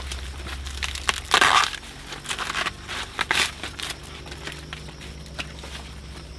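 Dry corn stalks and husks crunching and rustling in several bursts, the loudest about a second and a half in.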